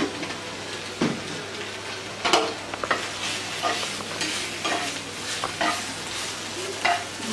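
Spinach leaves sizzling in oil in a non-stick frying pan, stirred and turned with a plastic spatula that scrapes and taps the pan about seven times over a steady frying hiss.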